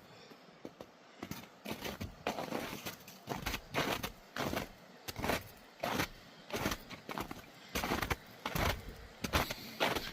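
Hiker's boots crunching on snow in a steady walking rhythm, about one and a half steps a second, starting about a second in.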